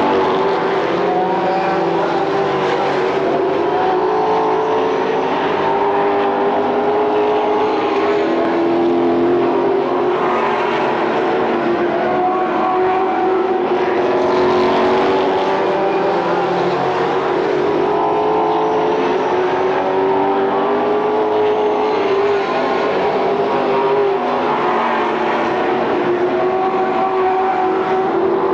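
A pack of late model stock cars racing around a short oval, their V8 engines running hard together. The engine notes stay loud and steady, wavering up and down as the cars lift and accelerate through the turns.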